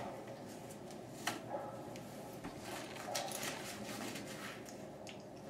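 Faint rustling of harness straps, with a few light clicks of the buckles and snaps as the harness is adjusted on the dog.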